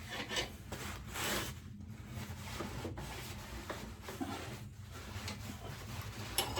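Irregular rubbing and scraping handling noises, with a few light clicks, from hands and tools working on a petrol lawnmower's carburettor, over a low steady hum.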